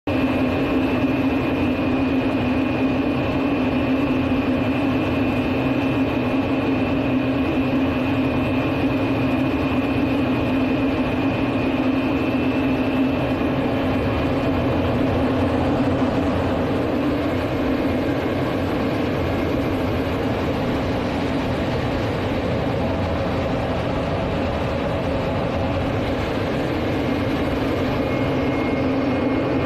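Steady cockpit noise of a Soko J-22 Orao in flight: the drone of its twin Rolls-Royce Viper turbojets and rushing air, heard from inside the closed canopy, with a thin high whine that fades about halfway through.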